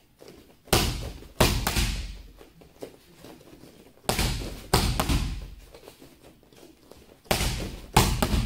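Boxing gloves hitting focus mitts: three pairs of sharp smacks, the two hits in each pair less than a second apart and the pairs about three seconds apart, each with a short echo.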